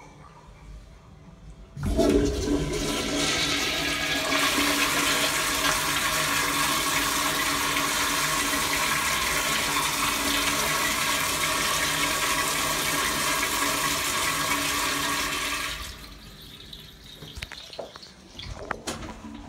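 Tankless American Standard 1.6 gpf toilet flushing through its chrome flushometer valve. A loud rush of water starts suddenly about two seconds in and runs steadily for about fourteen seconds, then cuts off.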